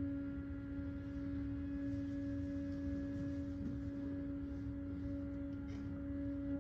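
Cello holding one long, quiet, very steady bowed note, almost pure in tone.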